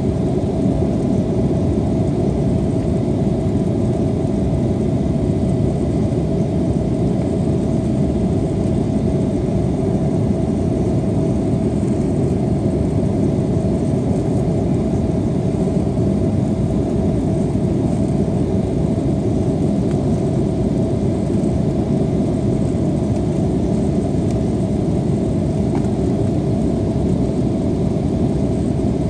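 Airliner cabin noise while climbing after takeoff: a steady, unbroken rumble of jet engines and airflow with a constant mid-pitched hum running through it.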